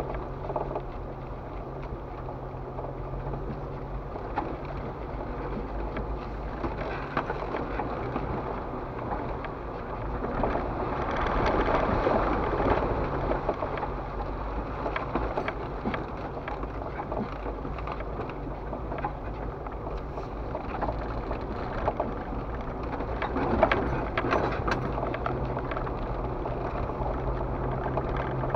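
Jeep Wrangler TJ crawling along a rough dirt trail, heard from on the vehicle: a steady low engine hum under the rumble of tyres on dirt and gravel, with scattered knocks and rattles from bumps. The rumble swells about a third of the way in and again near the end.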